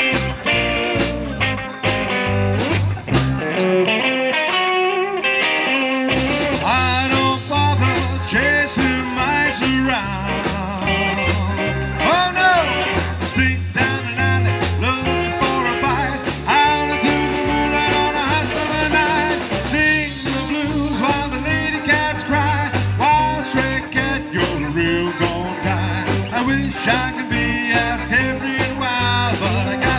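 Live small band playing a rockabilly-blues number on electric guitars, upright double bass and drum kit. The bass and drums drop out briefly a few seconds in, then the full band comes back in and a man sings lead over it.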